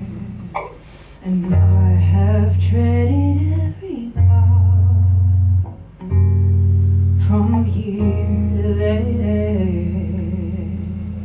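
Live song: guitar accompaniment over deep, held bass notes that change every second or two, with a voice singing wordless, gliding lines above.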